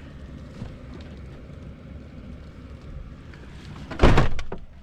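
A van door being shut, closing with a loud bang about four seconds in, after a few seconds of low rumbling wind and handling noise.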